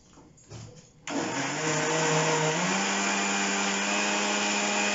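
Electric mixer-grinder with a stainless steel jar blending cold coffee made with frozen milk. After a light knock, the motor starts about a second in. Its pitch rises briefly as it spins up, then it runs steadily.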